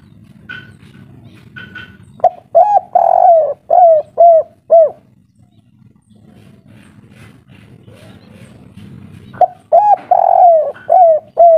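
Spotted dove cooing its local 'kuk 3' song: two phrases, about two seconds in and again about nine seconds in. Each phrase is a few short notes, a longer drawn-out note, then a run of short falling notes. Faint high chirps of a small bird come at the start.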